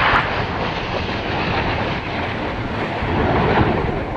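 Jet engine noise from the Red Arrows' BAE Hawk jets as the synchro pair flies past and away. It is loudest at the very start, then goes on as a steady, broad rumble.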